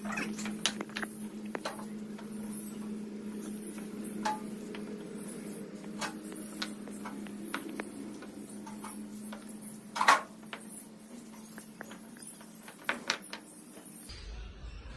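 Fired clay bricks being taken from a wheelbarrow and set down on a concrete floor and on one another: a string of irregular knocks and scrapes, the loudest about ten seconds in. A steady low hum runs underneath and stops near the end.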